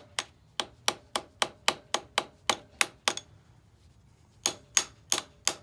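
Quick light hammer taps on metal, about four a second, driving a screwdriver wedge into the slot of a Suzuki DRZ400's front fork axle clamp to spread it open so the front axle can be pulled out. About three seconds in the tapping stops for a second and a half, then resumes.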